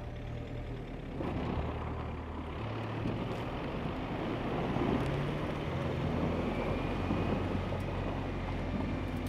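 Two-wheel-drive Mahindra Scorpio's engine running under throttle as its rear wheels spin in loose sand and spray it out behind; the SUV is stuck. The engine pitch steps up a few times as the throttle is pushed.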